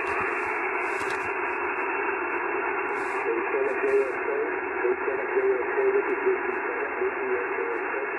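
ICOM IC-7100 HF transceiver receiving single sideband on 20 metres: a steady hiss of band noise, cut off above a few kilohertz, heard through a small external speaker. From about three seconds in, a weak, garbled voice of a station answering the CQ call wavers through the noise.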